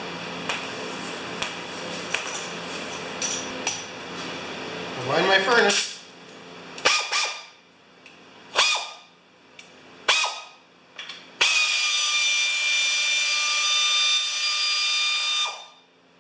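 A power drill driving a socket to back out the 3/8-inch bolts: a few short bursts of the motor, each dying away when released, then one steady run of about four seconds that stops suddenly near the end.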